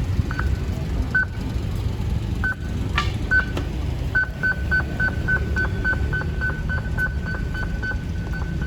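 Short electronic beeps at one pitch, a few scattered at first and then about four a second from about four seconds in, over a steady low rumble, with a single click about three seconds in.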